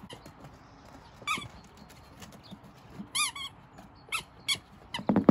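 A squeaky rubber ball toy squeaking in several short, high-pitched squeaks at irregular intervals as a Pomeranian bites it.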